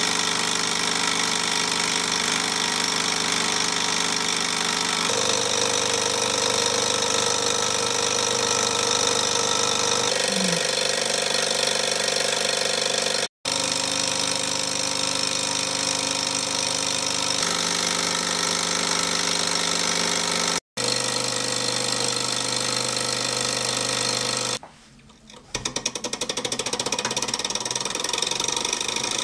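Alpha-type Stirling hot-air engine models running steadily, giving a fast, even mechanical clatter from their pistons, crank linkage and flywheel. The sound dips for about a second near the end, then the rapid ticking starts again.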